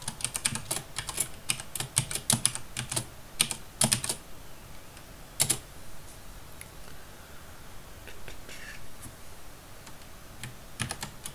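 Computer keyboard being typed on, a quick run of keystrokes entering a password for about four seconds, then a single keystroke a little later. After a quieter stretch a few more keystrokes come near the end.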